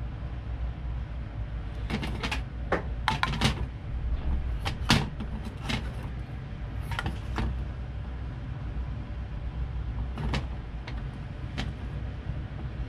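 Spatula scraping and tapping against an aluminium saucepan as butter is stirred while it melts, in short scattered strokes with a cluster in the first few seconds. A steady low hum runs underneath.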